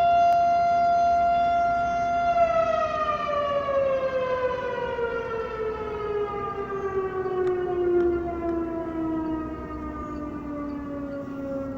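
Model 5 tornado siren sounding its weekly test: it holds one steady tone, then about two seconds in it begins winding down, its pitch falling slowly and steadily.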